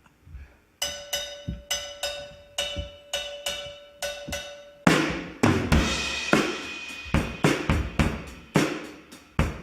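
A cowbell played alone in a steady beat, about three ringing hits a second, then about five seconds in a drum kit comes in with bass drum, snare and crashing cymbals as a live band starts a song.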